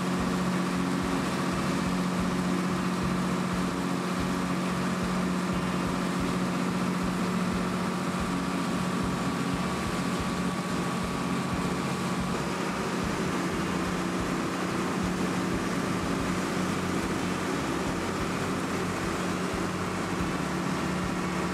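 Steady engine drone of a small passenger ferry under way, holding one even low pitch, over a constant rush of wind and water.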